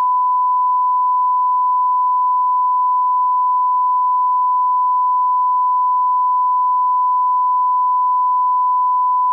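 One steady, loud electronic tone at a single pitch, about 1,000 Hz, held unchanged like a reference test tone.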